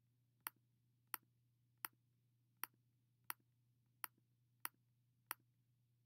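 Computer mouse button clicking eight times, a sharp single click about every two-thirds of a second, each click placing a point of a polyline.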